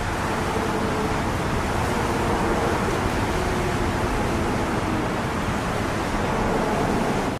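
Steady hiss of rain falling onto a flooded street, with a faint hum underneath that wavers in pitch.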